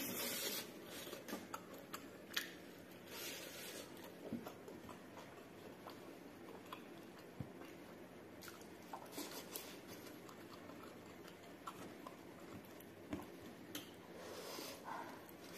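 Faint, close-miked chewing of tender pork, with irregular small wet clicks and lip smacks.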